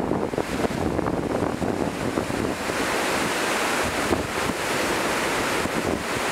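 Surf washing up a sandy beach, a steady rushing hiss that swells about two and a half seconds in, with wind on the microphone.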